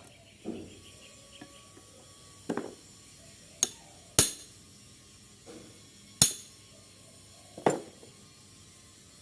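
A hammer striking a steel machete blade in about six irregularly spaced blows. Three are sharp, ringing metal-on-metal hits and the others are duller knocks.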